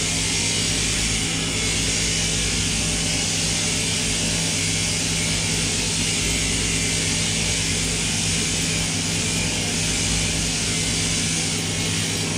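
Sheep-shearing machinery running: a steady mechanical hum with a high hiss that holds level throughout.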